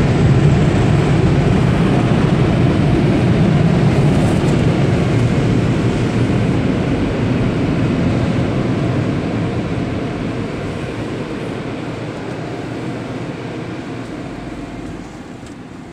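Car wash blower dryers giving out a loud, steady rush of air that fades away gradually as the car pulls out of the wash.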